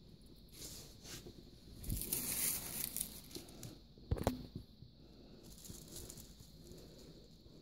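Crinkly rustling of small craft items being handled by hand, loudest in a longer crinkle about two seconds in, with a soft knock about four seconds in.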